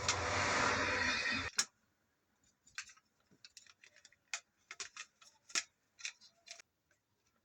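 Dyson V10 cordless vacuum motor running with a steady rush, then cutting off sharply with a click about a second and a half in. Scattered small clicks and taps of plastic parts being handled follow.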